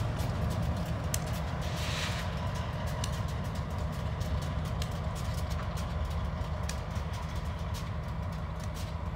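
Diesel locomotives running at low throttle with a steady low engine rumble as they creep along. There is a brief hiss about two seconds in and scattered light clicks.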